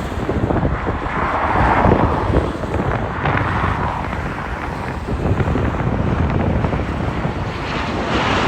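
Wind buffeting the microphone over the steady jet noise of a four-engine Boeing 747-8 on final approach.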